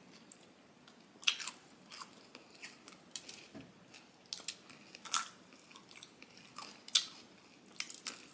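Crunchy bites and chewing into a piece of ice cream made to look like fried chicken, its coating crunching. There are scattered sharp crunches, the loudest about a second in and again around five and seven seconds in.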